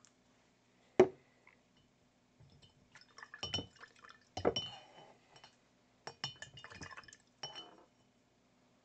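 The flip-top cap of a plastic acrylic paint bottle snaps shut with one sharp click, then come several seconds of light clinks and rattles as painting gear is handled and set down on the table.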